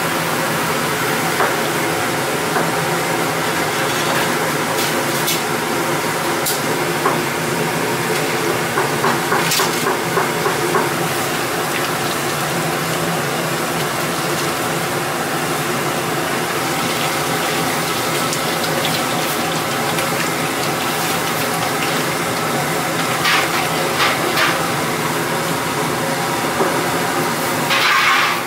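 Large stockpot of dark braising liquid at a rolling boil, a steady bubbling hiss, with liquid splashing and pouring as a perforated metal strainer basket is dipped in and lifted out, and a few sharp metal clinks.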